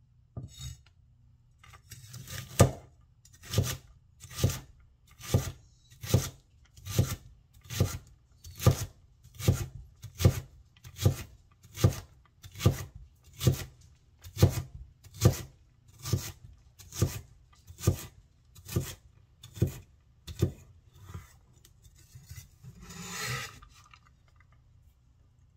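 Chinese vegetable cleaver chopping through a bundle of julienned carrot onto a wooden cutting board, in about twenty even strokes a little more than one a second. Near the end the blade scrapes across the board as the diced carrot is swept onto it.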